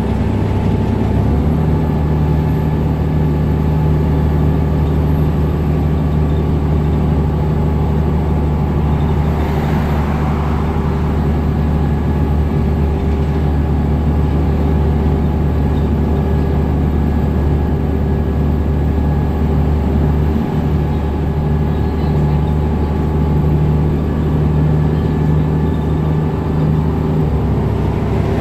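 Cummins ISM diesel engine of a New Flyer D60LFR articulated bus running steadily under way, heard from inside the bus. The low engine note strengthens about a second in and eases off near the end, with a brief swell of rushing noise around ten seconds in.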